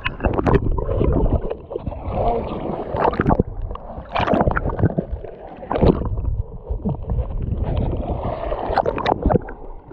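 Rough seawater sloshing and splashing close to the microphone, with repeated sudden loud bursts over a constant rumble.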